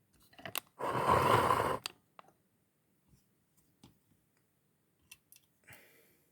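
Handling noises on a workbench: a rustle lasting about a second, then a few light clicks and taps and a shorter, softer rustle near the end.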